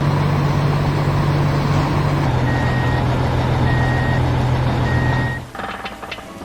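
Heavy construction vehicle's engine running steadily while its reversing alarm beeps three times at an even pace. The engine cuts off about five and a half seconds in, followed by a few light clicks.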